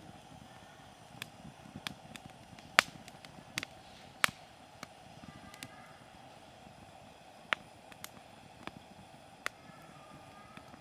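Hardwood firewood burning in a small campfire, crackling with irregular sharp pops over a low steady noise from the fire. The two loudest pops come about three and four seconds in.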